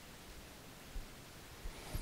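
Faint room hiss with a soft low bump about a second in, then a few faint rustles and bumps near the end: bedding shifting under a person lying in bed who moves his head on the pillow.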